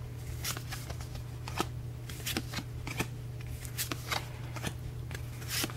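A small stack of Pokémon trading cards being flipped through by hand, each card slid from the back to the front: a quick, irregular series of light clicks and paper swishes.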